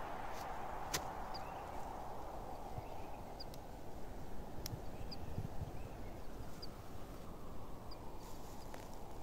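A tarp shelter being pitched by hand: a wooden stick pole handled and set against the ground, giving a sharp click about a second in, another near the middle, and a few soft thuds just after, over a steady outdoor hiss. A small bird chirps briefly now and then.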